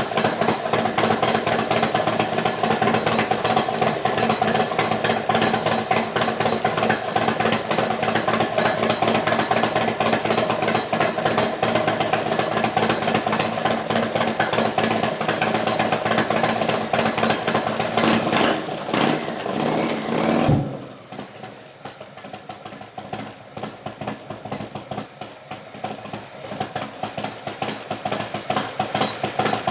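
Indian Thunder Stroke 111 V-twin motorcycle engine with Stage 3 cams idling through slip-on mufflers, an even, steady exhaust note. About two-thirds through the sound drops suddenly to a much quieter, uneven running.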